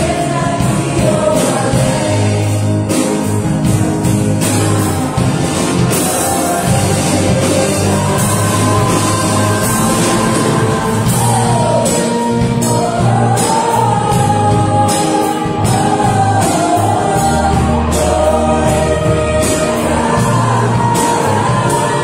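A live gospel band and vocal group performing: women's voices singing together over keyboard, acoustic and electric guitars, bass and drums.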